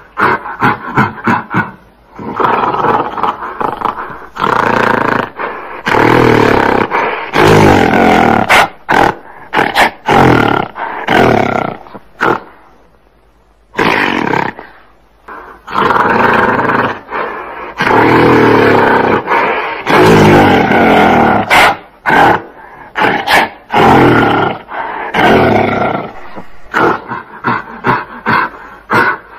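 Gorilla roaring: several long, loud roars of a few seconds each, with quick runs of short, clipped calls near the start and end and a brief pause about halfway.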